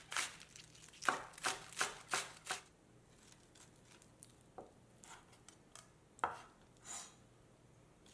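Kitchen knife slicing green onions on a cutting board: a quick run of about six cuts in the first couple of seconds, then a few scattered taps.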